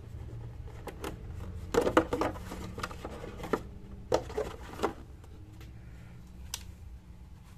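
Cardboard box and its moulded tray insert being handled, rustling and clacking in a few short bursts, the loudest about two seconds in.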